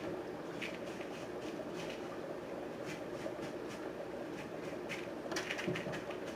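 A steady low hum with a few faint clicks and rustles of handling, the most of them about five and a half seconds in.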